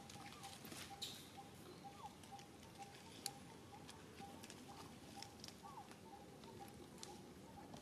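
Quiet outdoor ambience: a faint bird repeating one short note over and over at an even pace, with a few soft small clicks.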